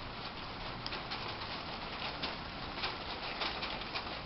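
Rain starting to fall on garden foliage: a steady patter with scattered, sharper drops.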